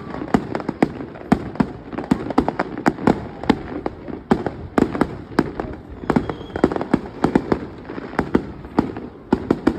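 Fireworks display: a rapid, irregular run of bangs and pops from bursting shells, several a second, over a continuous low rumble.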